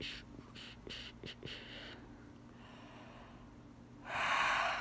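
A person's breath: several short, breathy puffs, then one louder breath lasting under a second near the end.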